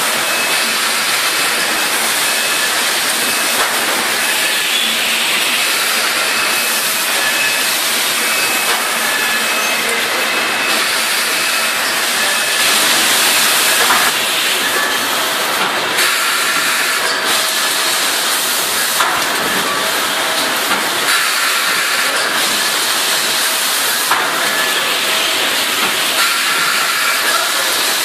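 Automatic sugar packing and baling line running: a steady hiss and machine whir with a few faint high tones and occasional light clicks.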